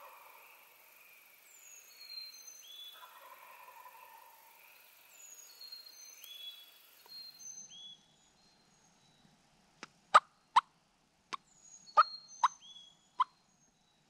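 Songbirds singing in the woods. After a cut, a series of about seven short, sharp turkey clucks at uneven spacing, much louder than the birdsong.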